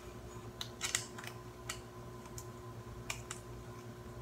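A handful of light, scattered clicks and ticks as a monopod's quick-release plate is fitted and screwed onto the underside of a DSLR camera, over a faint steady hum.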